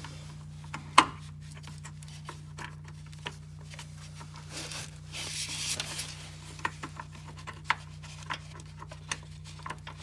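Metal clicks, knocks and scraping from a 13 mm socket on an extension working a battery hold-down bolt loose. A sharp knock comes about a second in, and a short rasping stretch comes around the middle.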